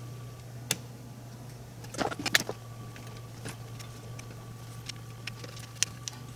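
Light clicks and knocks as an aluminium bracket holding an LED circuit board is handled and turned over, loudest in a quick cluster about two seconds in, over a steady low hum.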